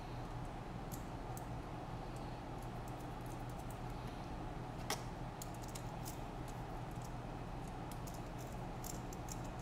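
Scattered light clicks and taps of small parts as a quadcopter frame is handled and assembled, with one sharper click about five seconds in, over a steady low hum.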